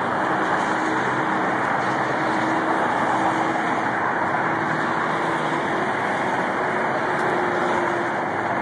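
Steady rush of freeway traffic passing close by: tyres and engines of cars and trucks blending into one continuous noise, with a faint engine drone held through most of it.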